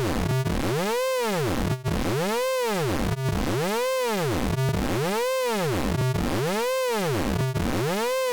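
Synthesized electronic tone sliding smoothly up and down in pitch over and over, about six rise-and-fall sweeps, a steady warbling sound effect.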